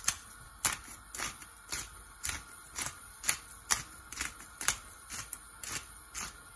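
Disposable Kania black-peppercorn grinder with a ceramic burr being twisted by hand, crunching peppercorns in a run of short ratcheting clicks about twice a second.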